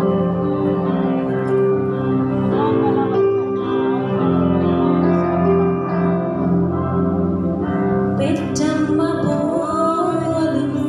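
Electronic keyboard playing sustained chords and a melody line as accompaniment to a Malayalam Christian devotional song; a woman's singing voice comes in about eight seconds in.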